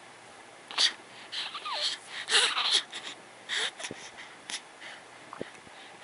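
Young baby's noisy breathing in a string of short breathy bursts, with one faint, short falling coo nearly two seconds in.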